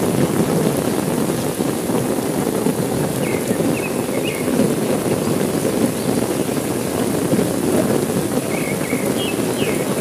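Heavy rain falling steadily, a dense, even hiss with no letup. A few faint, short high chirps come through the rain twice.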